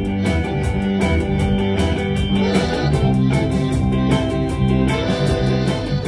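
A live rock band playing: electric guitar and bass guitar over a steady beat.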